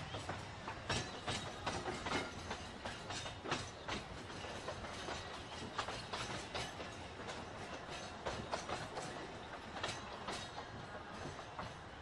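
Alishan Forest Railway train rolling slowly, heard from aboard: a steady rolling noise with irregular clicks and knocks from the wheels over the rail joints.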